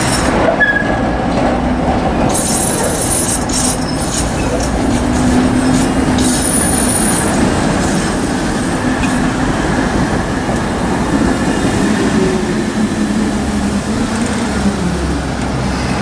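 Two-car Tatra T6A5 tram set running close by over curved track, its wheels squealing high on the rails for a few seconds in the first half, with knocks from the wheels over the rail joints. The traction motor hum falls in pitch in the second half as the tram slows.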